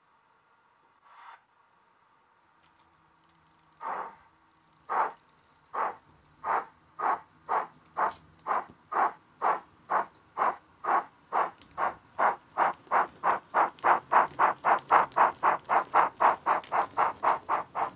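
Digital (DCC) steam sound from a Bachmann Ivatt Class 2 OO gauge model locomotive, played by a LokSound Micro decoder through a thin flat speaker in the tender. A brief faint hiss about a second in, then exhaust chuffs begin about four seconds in, slow at first and quickening steadily to about three a second as the locomotive pulls away.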